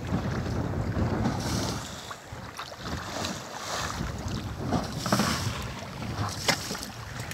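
Wind buffeting the microphone over the wash of sea water running and splashing along the hull of a small sailing fishing boat under way, with a couple of sharp slaps in the second half.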